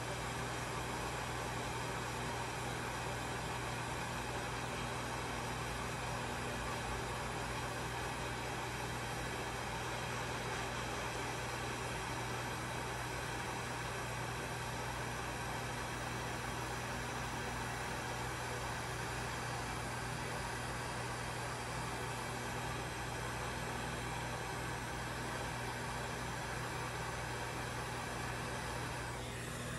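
Hot air rework station blowing steadily, a constant rushing hiss with a low hum, as it heats the solder to reseat a capacitor on a PS5 motherboard. It eases slightly near the end.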